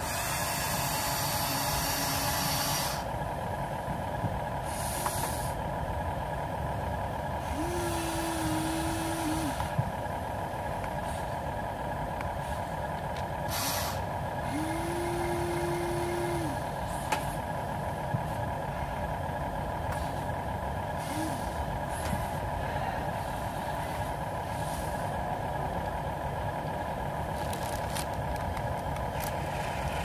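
Electric motors and plastic gearboxes of toy remote-control construction models (an excavator and a dump truck) whirring steadily as they drive and move. A steadier whine rises in twice, for about two seconds each, around a quarter and halfway through, and there is some hissing near the start.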